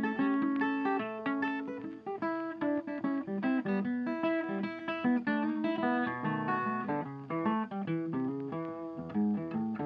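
Background music: acoustic guitar playing plucked, strummed notes.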